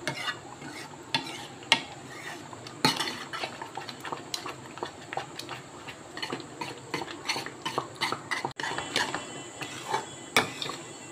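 Metal ladle stirring thick, thickening wheat halwa in a metal kadai, with irregular scrapes and clinks as it hits the pan's sides and bottom.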